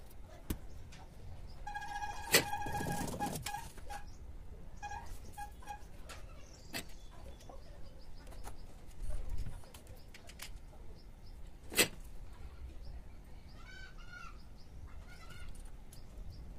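Two sharp snips and clicks from wire cutters and wires being handled, with a soft thud in between. Birds call in the background: a held call early on and a few short chirps near the end.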